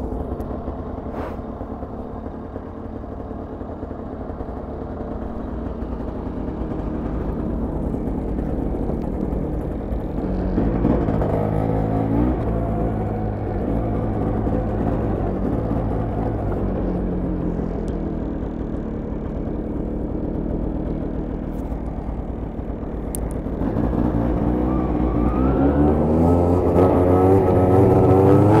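Arctic Cat Blast snowmobile's single-cylinder two-stroke engine running as the sled is ridden, its pitch and loudness rising with the throttle about ten seconds in and again near the end.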